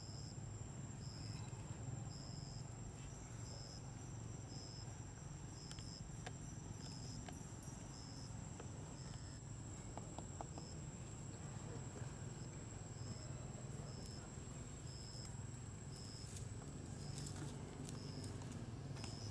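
Forest insects calling: a steady high-pitched whine with a second insect chirping about once a second, pausing briefly midway, over a steady low rumble.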